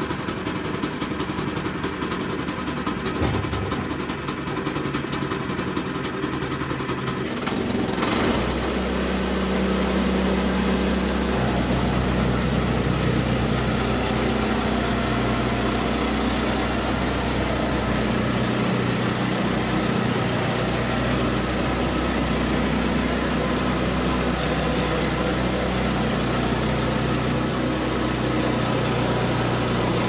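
Woodland Mills HM122 portable band sawmill's gas engine idling, then about eight seconds in throttling up and running steadily at speed as the band blade saws through a small ash board.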